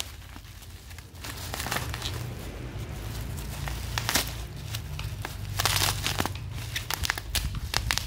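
Black plastic bubble wrap crinkling and rustling as it is handled and peeled away by hand, in irregular bursts, loudest about four seconds in and again around six seconds.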